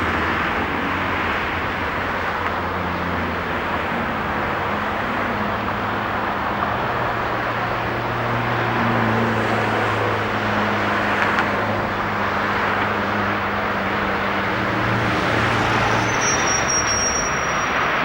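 Diesel train engine running steadily, its low engine note shifting partway through, with a brief high squeal near the end.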